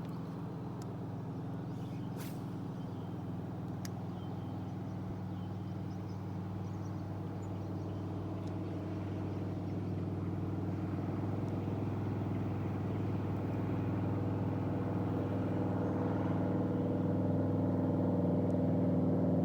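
A boat engine running steadily on the water, growing gradually louder as it comes closer.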